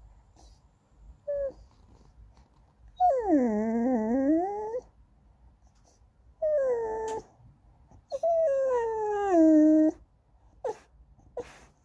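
Goldendoodle puppy whining to beg for snacks, in drawn-out, sing-song cries. A short whine about a second in is followed by three long ones: the first dips low and climbs back up, and the later two slide down in pitch.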